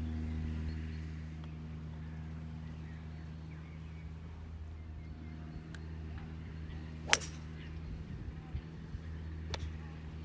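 Two sharp cracks of golf irons striking balls on a practice range, the first and loudest about seven seconds in, the second about two and a half seconds later, over a steady low hum.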